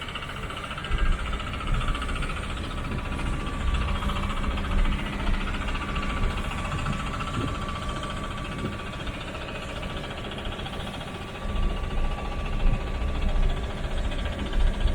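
City street ambience: a steady hum of road traffic with a faint steady tone, and low rumbling swells about a second in and again from about eleven seconds.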